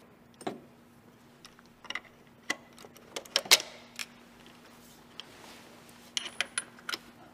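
Metal hand tools clicking and clinking against the camshaft pulley and its central adjuster valve bolt while the valve is being loosened. The clicks are sharp and scattered, with a cluster near the end, over a faint steady hum.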